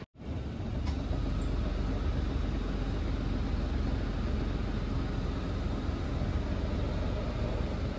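Steady outdoor rumble, heaviest in the low bass, with a single faint click about a second in.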